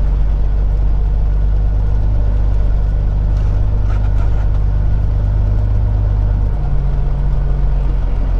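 Peterbilt 379 semi-truck's diesel engine running at low speed as the truck crosses a dirt lot, heard from inside the cab. The engine note changes about six and a half seconds in.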